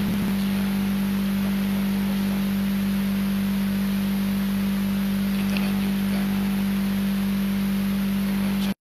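A steady low electronic hum with hiss, one unchanging tone that starts and cuts off abruptly, typical of a recording or signal fault.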